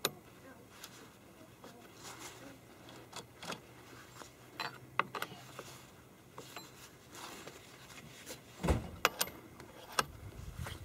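Scattered metal clicks and taps of a scrench being fitted to and turned on the bar nuts of a Jonsered chainsaw. Near the end comes a knock followed by a quick run of sharp clicks.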